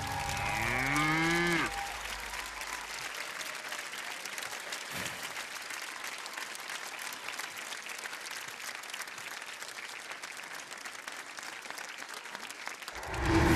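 A male singer's final held note rises and the orchestral accompaniment cuts off about a second and a half in. Then a studio audience applauds steadily, with a loud voice calling out near the end.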